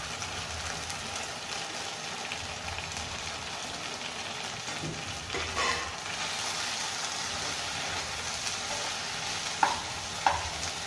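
Soya chunks and vegetables sizzling in a nonstick pan while being stirred with a spatula; the hiss grows a little louder about halfway through. Two sharp taps near the end.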